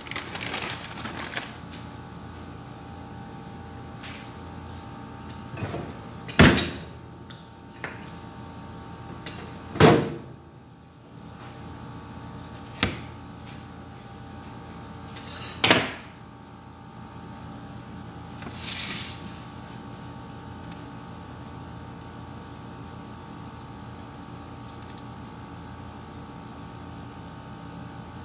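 Kitchen clatter over a steady appliance hum: a handful of sharp knocks and clunks through the middle, the first one the loudest, with short rustles near the start and again about two-thirds of the way in.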